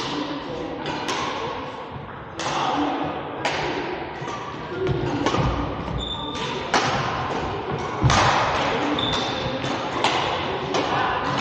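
Badminton rally: irregular sharp racket strikes on the shuttlecock and thuds of footwork, echoing in a large gymnasium, with a couple of short sneaker squeaks on the wooden floor about halfway through and near the end.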